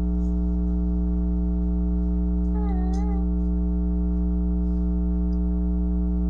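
Steady electrical mains hum with a buzzy stack of overtones, running at an even level throughout. About halfway through comes one short wavering high-pitched call, about half a second long.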